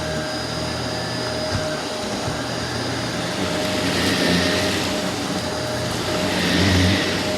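Two Shark upright vacuum cleaners, a Navigator Lift-Away Professional and a Rotator Lift-Away Professional, running together on a rug: a steady motor whine with a high note above it, swelling louder twice in the second half.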